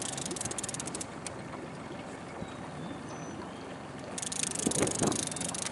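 Fishing reel clicking rapidly while line is worked against a hooked paddlefish, in two spells: one in the first second and another starting about four seconds in. Steady water noise runs under it.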